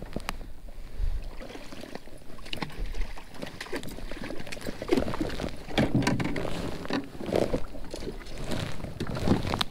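Irregular clicks and knocks of rod, reel and gear against a small fishing boat while a hooked fish is fought, with wind buffeting the microphone early on.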